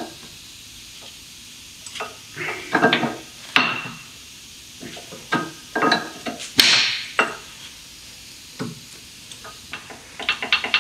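Steel-backed brake pads being handled and pushed into a caliper carrier: irregular metal clinks, knocks and scrapes, with one longer scrape a little past halfway and a quick run of ticks near the end.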